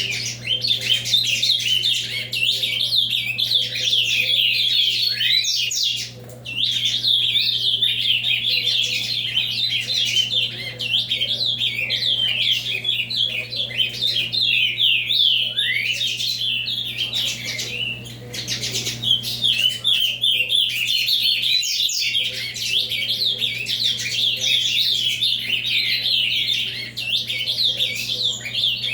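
An ultramarine grosbeak (azulão) singing a long, fast, unbroken run of high warbled phrases in the 'avalanche' song style, pausing briefly a few times. A steady low hum runs underneath.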